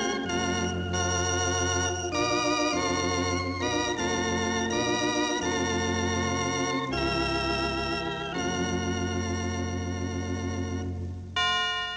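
Solo organ playing a Christmas tune in sustained chords over a bass line, the notes wavering with vibrato. Near the end a bright chord sounds and begins to die away.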